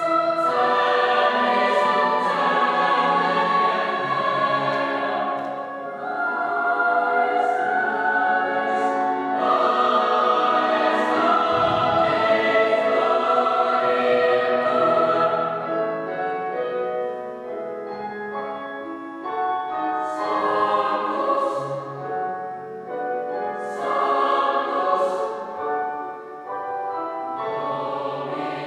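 A boys' choir singing in a church, sustained phrases of many voices, with a quieter passage in the middle before the singing swells again.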